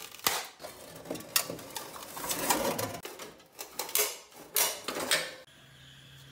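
Tin snips cutting through the thin sheet-metal heat shield on an exhaust catalytic converter, with a series of sharp snips and crunching, tearing metal as the shield is cut and pulled away. About five and a half seconds in this gives way to the steady hiss of an oxy-acetylene torch flame.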